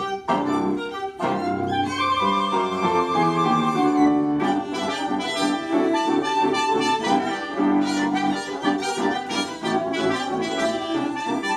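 Small chamber ensemble of trumpet, bassoon, cello and piano playing a classical piece together, with the trumpet prominent. A run of falling notes comes about two seconds in.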